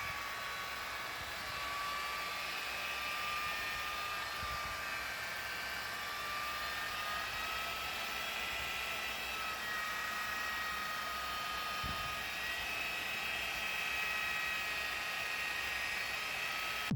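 Steady machine whine over a hiss, its pitch wandering slightly.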